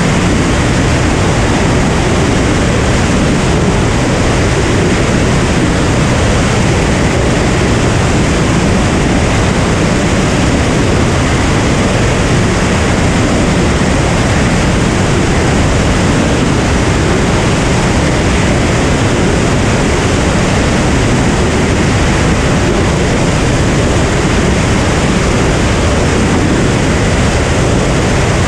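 Cirrus SR22 light aircraft in cruise flight: the engine, propeller and rushing airflow blend into one loud, even noise that holds steady throughout.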